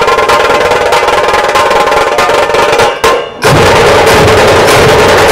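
Loud, fast festival drumming with continuous rolls. It breaks off briefly about three seconds in and comes back fuller, with a heavier low beat.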